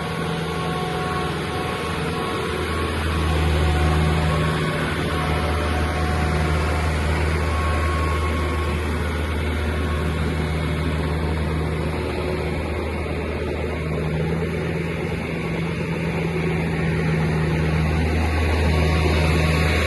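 Wirtgen W500 cold milling machine's diesel engine running steadily with a deep hum, swelling a little in level a few seconds in and again near the end.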